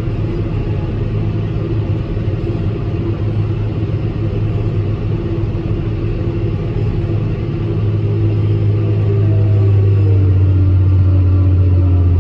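John Deere 6150R tractor and Kongskilde 1260 trailed forage harvester running at full load, chopping grass, heard from inside the tractor cab: a steady low drone that grows louder from about eight seconds in.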